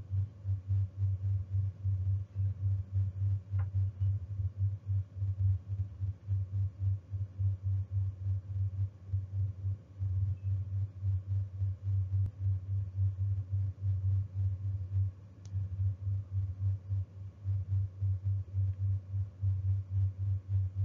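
A low pulsing tone that beats evenly about three times a second, breaking off briefly about two-thirds of the way through.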